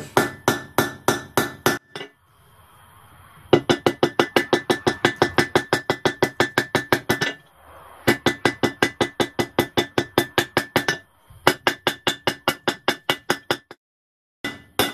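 Hand hammer striking red-hot steel on an anvil, about five blows a second in several quick runs with short pauses between, each blow with a bright anvil ring. This is the reins of a pair of kit tongs being rounded out from square toward an octagon.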